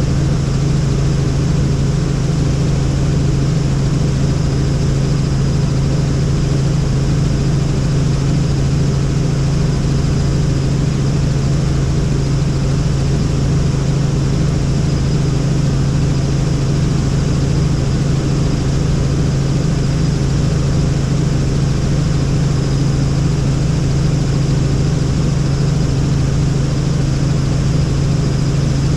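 Helicopter in steady flight: an unbroken engine and rotor drone with a strong low hum, unchanging throughout.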